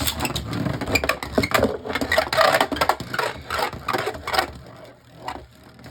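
Two Beyblade Burst spinning tops launched into the stadium, hitting and scraping against each other in a rapid run of clicks and knocks that dies down after about four and a half seconds.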